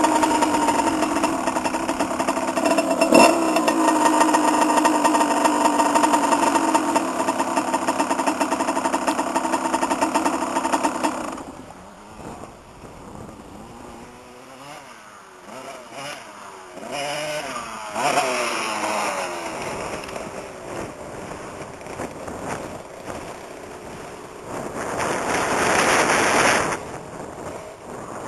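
Kawasaki KX80 two-stroke dirt bike engine running hard at steady high revs. About eleven seconds in the sound drops away suddenly. The engine is then quieter, its pitch rising and falling in short pulls, with a louder rushing noise near the end.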